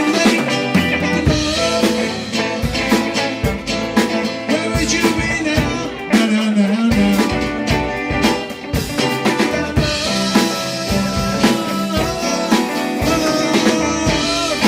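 Live band music, a drum kit keeping a steady beat under pitched instruments.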